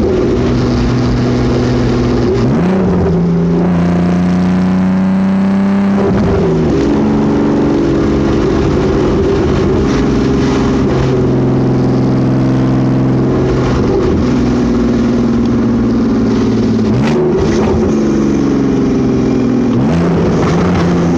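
Vehicle engine running, its pitch stepping down and back up several times. The owner suspects an exhaust leak.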